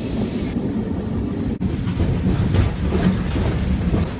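Lisbon Tram 28's electric Remodelado tramcar running along its street rails, a steady low rumble heard from on board, broken once by a brief dropout about a second and a half in.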